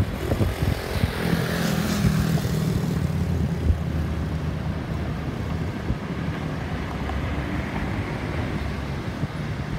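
Jet engine rumble of an Airbus A320-216 (CFM56 engines) flying over and receding. A brighter hiss fades out over the first couple of seconds, leaving a steady low rumble.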